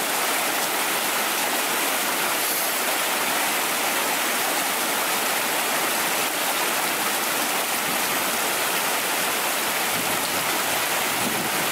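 Shallow mountain brook rushing over rocks and boulders: a steady, unbroken rush of water.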